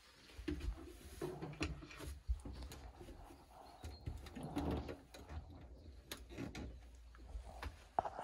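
Quiet knocks and clicks of a caravan kitchen being handled: the hinged worktop cover over the sink is lifted and folded back and the tap is handled.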